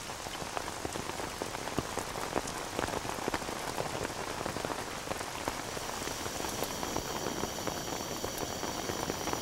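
Steady rain pattering, a dense spray of small drop ticks.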